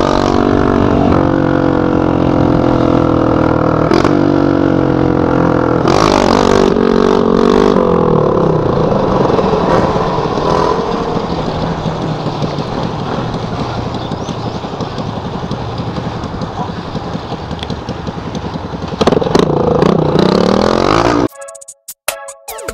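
Dirt-bike engine on an open straight pipe with no muffler, running loud as the bike is ridden, its revs rising and falling. It settles lower through the middle, then revs hard again near the end and cuts off suddenly, with electronic music for the last moment.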